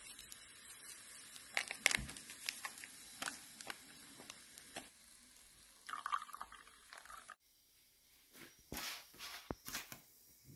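Faint taps and clinks around a ceramic mug, then hot water poured from an electric kettle into the mug for about a second, cut off abruptly. A few faint clicks follow.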